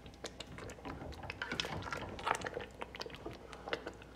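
Thick spinach-and-mutton curry bubbling and spluttering in a metal pot as it is stirred with a plastic spatula: irregular wet pops and crackles.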